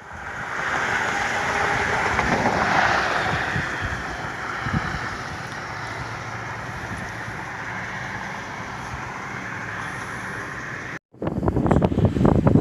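Steady rushing of floodwater, swelling a few seconds in and then holding even. After a brief dropout near the end, gusty wind buffets the microphone.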